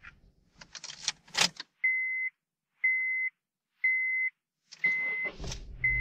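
A few clicks and knocks inside a BMW M2, then the car's warning chime sounding a single steady tone about once a second. About five seconds in, the M2's turbocharged inline-six starts and settles into a low, steady run.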